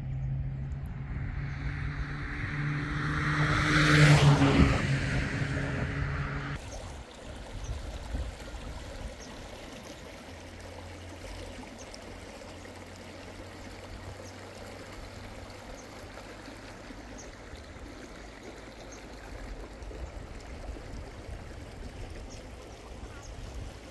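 A motor vehicle's engine hums and grows louder, peaking about four seconds in, then cuts off abruptly. A steady rushing noise with faint scattered ticks follows.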